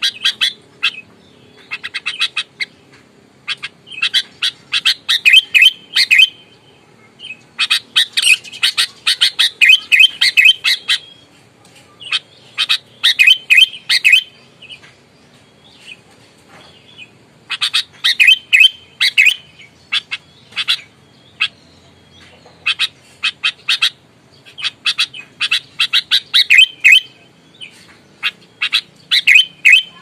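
Sooty-headed bulbul (kutilang) singing in loud bursts of quick, chattering notes, a new burst every one to three seconds. This is the aggressive, full-voiced fighting song that keepers call gacor tarung.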